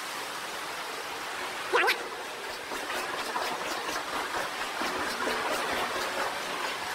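Steady rush of flowing sewer water echoing in a concrete tunnel. Just under two seconds in, a brief loud squeal sweeps sharply upward in pitch, and after it come a run of faint light clicks.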